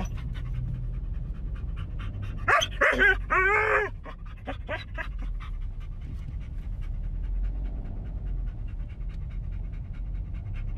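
A dog panting quickly and steadily, with a few short, high whining cries about two and a half seconds in.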